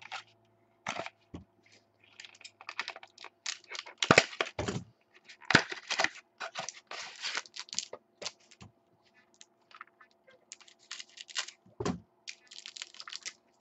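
A foil trading-card pack being torn open and the cards handled: irregular crackling, tearing and clicking, with a few sharper snaps around four seconds in and again near the end.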